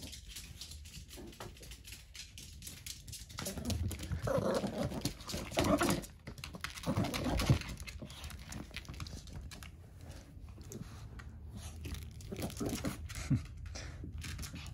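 Yorkshire terrier shaking and swinging a plush toy: scuffling, rustling and sharp clicks of toy and paws against the floor, loudest between about four and eight seconds in.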